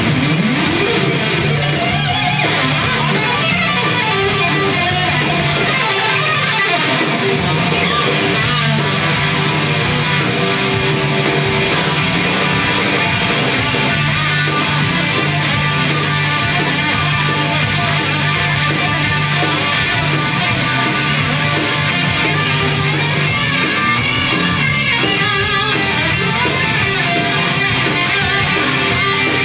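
Live rock band playing loud and without a break: electric guitars over bass guitar and drums, heard from the audience.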